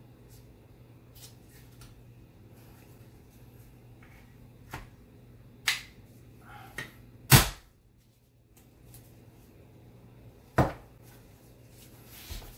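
Clicks and knocks of a Hi-Point 995TS carbine and its HTA MBS-95 bullpup stock being fitted and locked together by hand, over a steady low hum. The knocks are scattered: a few small ones, the loudest a little past halfway, and another sharp one about three seconds later.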